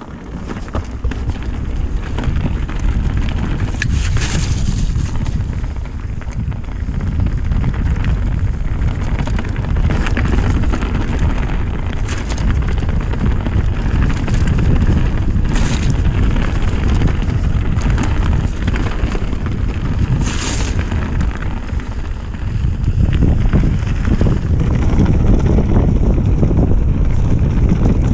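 Mountain bike descending a muddy forest trail: a steady rumble of wind buffeting the camera microphone and tyres rolling over dirt and roots, with a few sharp knocks and rattles from the bike over bumps. It grows louder a few seconds before the end as the pace picks up.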